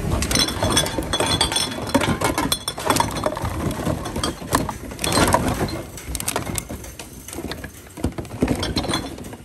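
Empty plastic drink bottles and cans clattering and crinkling against each other as a hand rummages through them in a cardboard box. Dense, irregular clicks and rustles for about six seconds, then scattered clinks.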